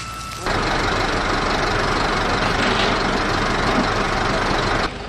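A loud, steady engine running close by, a hissing rush over a low rhythmic rumble. It starts suddenly about half a second in and cuts off near the end.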